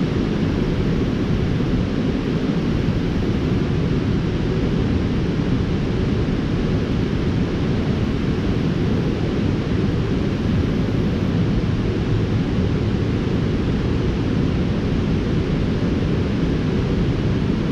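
Steady, even rush of river water spilling over a low dam, a constant low roar with no breaks.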